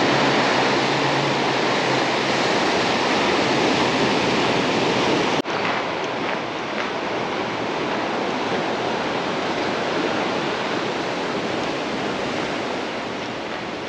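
Sea surf washing onto the shore, a steady dense rush of breaking waves. It dips briefly about five seconds in and goes on a little quieter.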